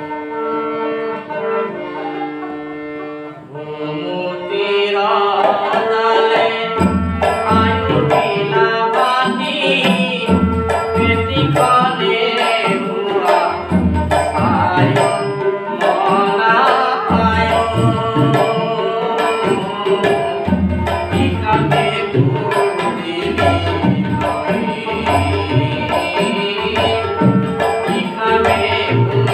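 Kamrupi folk song from Assam performed live: a man sings over harmonium, with held harmonium and voice notes at first. From about five seconds in, a hand-played barrel drum and a plucked dotara join in a steady rhythm under the singing.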